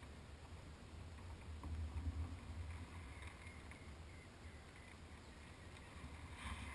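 Faint low rumble of wind and water around a small Spiral sailing dinghy under way, swelling slightly about two seconds in.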